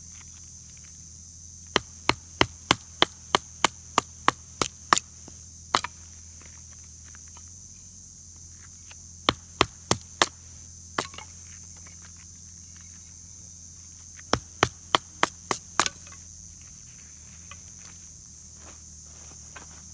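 Firewood being chopped: sharp wooden strikes in three quick runs of about three a second, with a few single blows between. Underneath is a steady high drone of insects.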